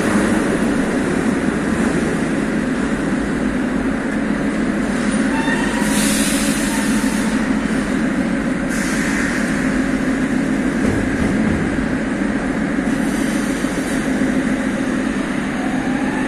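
Metro train standing at an underground station platform: a steady low hum from the train, with three bursts of hissing spread through it.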